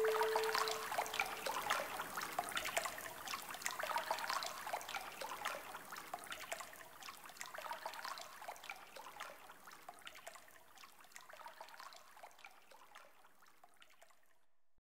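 Water trickling and dripping, a dense patter of fine drips that fades steadily away until it stops.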